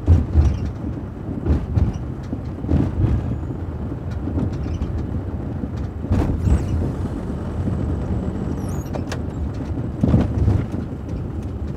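Minibus driving in city traffic, heard from inside the cab: a steady low engine and road rumble, with a few short thumps from the body as it rides over bumps.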